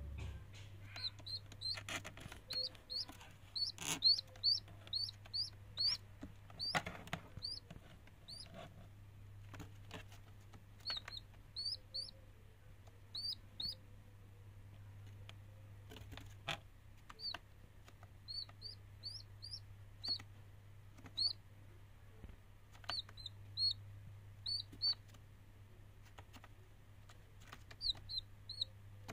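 A downy chick peeping: short, high chirps that rise in pitch, coming in quick runs of several at a time, with scattered light taps and a steady low hum underneath.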